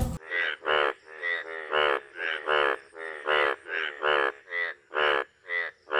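Male Indian bullfrog calling with its paired vocal sacs inflated: a rapid series of short croaks, about two a second.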